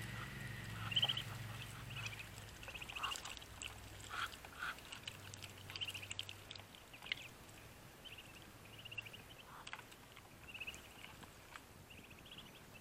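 Two-week-old Muscovy ducklings peeping: short, high calls repeated every second or so, with a few lower calls among them. A faint low hum sits underneath and fades about five seconds in.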